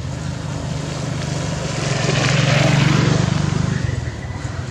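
A motor vehicle passing by: its engine hum and noise build to a peak about two and a half seconds in, then fade away.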